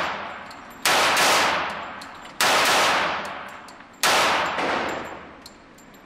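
Three .45 ACP shots from an FN FNP-45 pistol, about a second and a half apart, each sharp crack ringing out in the echo of an indoor range and dying away before the next.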